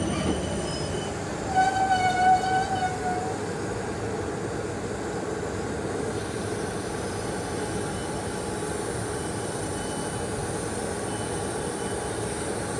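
Electric multiple-unit passenger train running away along the platform with a steady rumble. About one and a half seconds in, a train horn sounds one held note for under two seconds.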